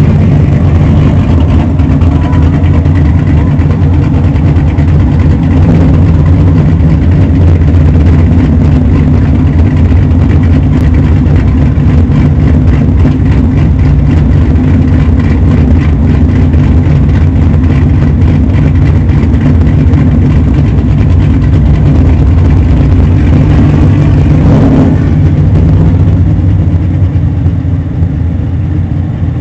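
A vehicle's engine running steadily close to the microphone, with a rushing noise over it as it moves along. The level eases off slightly near the end.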